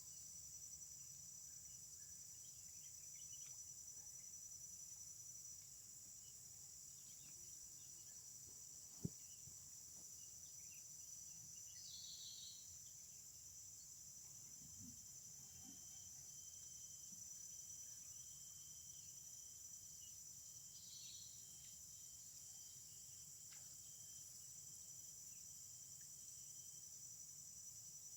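Faint, steady high-pitched insect chorus, with a few short chirps now and then and a single sharp click about nine seconds in.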